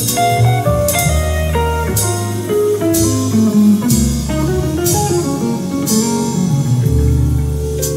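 Recorded music playing through Tannoy Eclipse bookshelf loudspeakers: a guitar line over a deep bass, with cymbal hits every second or two.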